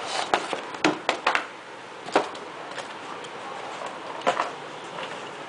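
Empty cardboard box and its insert being handled and set down on a table: a quick run of short knocks and scrapes in the first two seconds or so, then a couple more knocks about four seconds in.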